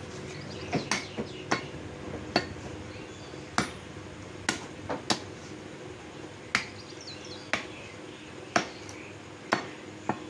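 Heavy butcher's cleaver chopping beef on a wooden stump chopping block: about a dozen sharp chops at an uneven pace, roughly one a second.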